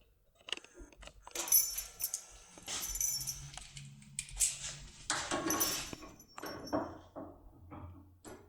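Irregular metallic jangling, clinking and clicking of a lock cylinder, keys and small lock-picking tools being handled, with bright metallic rattles on and off.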